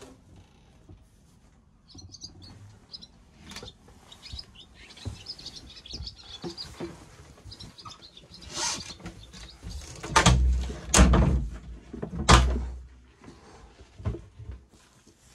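Small birds chirping faintly, broken later by a few loud knocks and low rumbling bumps.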